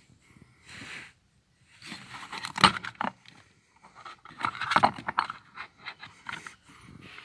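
Rubber cover over the rear upper strut mount being worked loose and pulled off by hand: irregular scraping and rubbing against the car body, with sharp clicks, loudest about two and a half seconds in and again around five seconds.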